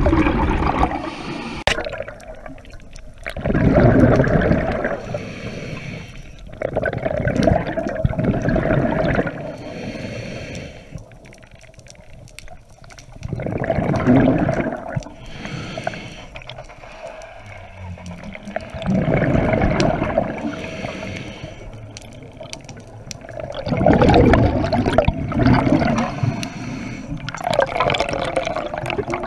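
Underwater scuba breathing: a diver's exhaled bubbles swell up loudly about every four to six seconds, each burst lasting a second or two, with quieter water noise between.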